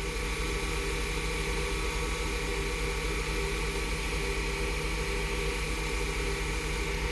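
Wood lathe running steadily at a turned-down speed of about 1,000 RPM, a constant motor hum while polish is held against the spinning padauk.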